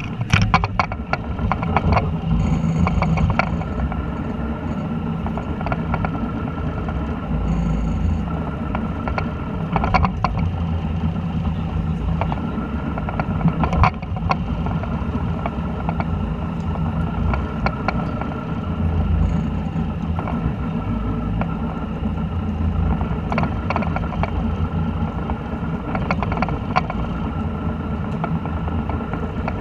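Fishing boat's engine running steadily with a low hum heard on deck, broken by a few scattered knocks and clicks.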